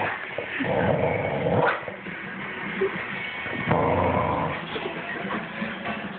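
Bulldog growling in two loud bouts, the first starting about half a second in and the second near the middle, with quieter growling between them.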